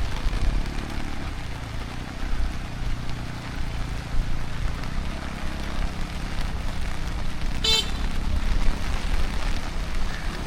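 Steady monsoon rain with a motor vehicle's engine hum passing on the road. About three-quarters of the way through there is a brief high-pitched sound.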